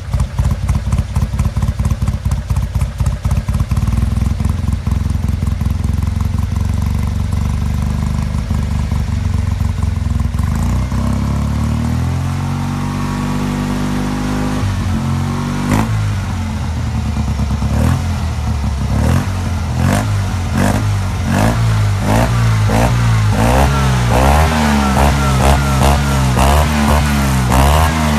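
Tuned 700cc air-cooled two-cylinder Fiat 500 engine idling, then revved by hand at the carburettor throttle during carburetion setup: one slow rise and fall around halfway, then repeated short throttle blips, about one a second and growing louder near the end.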